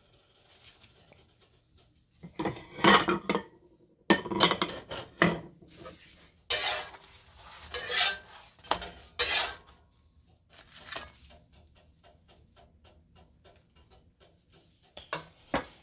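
Spatula scraping and clattering against a griddle pan and a plate as a cooked flatbread is lifted off and set down, in several bunches of sharp knocks over the first ten seconds, then fainter ticking.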